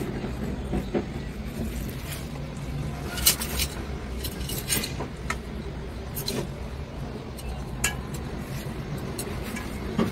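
Utensils clinking and knocking against each other as they are handled and set in place, with a scattering of separate sharp clinks at uneven intervals over a steady low background rumble.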